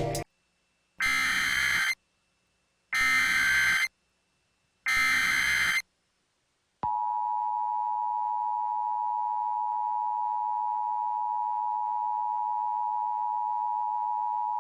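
Mock Emergency Alert System tornado warning tones: three short bursts of SAME header data a second apart, then the steady two-tone EAS attention signal starting about seven seconds in.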